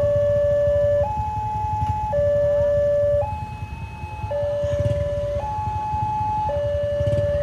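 Electronic two-tone warning siren of a WANTECH railway level crossing, alternating between a low and a high tone, each held about a second, sounding while the barrier is down. It dips briefly about three and a half seconds in. Underneath runs the low rumble of motorcycle engines idling at the barrier.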